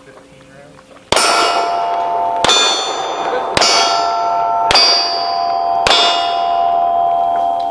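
Five pistol shots about a second apart at steel targets, each hit leaving the steel plate ringing. The rings overlap and are still sounding at the end.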